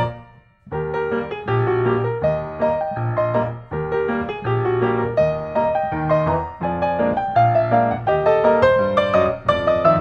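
Instrumental background music, which drops out for a moment just after the start and then carries on.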